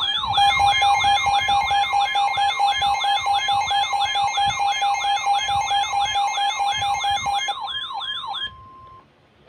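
Emergency alert broadcast's siren-like attention tone: a loud electronic tone sweeping rapidly up and down, about two and a half cycles a second, over a steady tone that drops out near the end. The siren cuts off abruptly about a second before the end, leaving a brief single tone that then stops.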